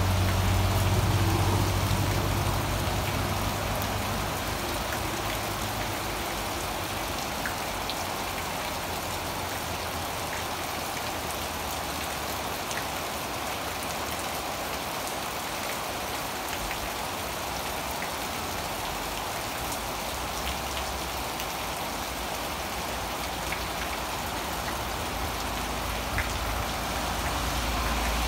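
Heavy rain pouring steadily onto garden leaves and wet ground. A passing auto-rickshaw's engine hum fades away over the first few seconds, and another engine grows louder near the end.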